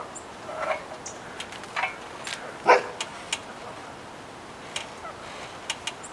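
Dog barking: a few short barks, the loudest about two and a half seconds in, with scattered sharp clicks and taps between them.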